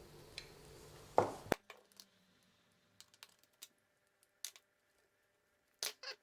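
Scattered light clicks and taps of hand tools on the small parts of an RC car being taken apart, with a louder pair of clicks near the end. A low background hum stops abruptly about a second and a half in.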